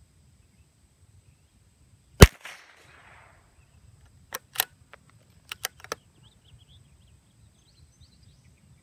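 A single shot from a CZ 455 .22 LR bolt-action rifle about two seconds in, with a trailing echo. About two seconds later comes a run of quieter, sharp clicks, the bolt being worked to eject the case and chamber the next round.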